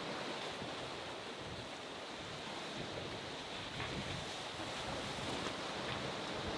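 Steady wash of the sea around the boat, with wind on the microphone.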